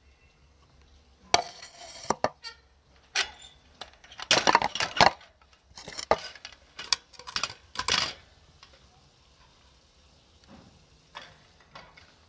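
Metal kitchenware being handled: a run of sharp clinks and knocks, densest in the middle, thinning to a few light taps near the end.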